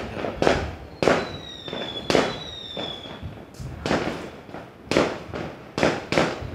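Fireworks going off repeatedly, a string of sharp bangs coming unevenly, about one or two a second. A high whistle sounds from about one to three seconds in, dipping slightly in pitch.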